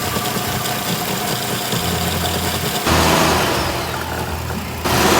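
A car engine running steadily, the sound changing abruptly about three seconds in and again near the end.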